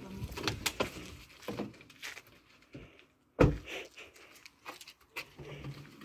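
Car doors opening and shutting with clicks and knocks as people climb out of a parked car, with one loud thump about three and a half seconds in.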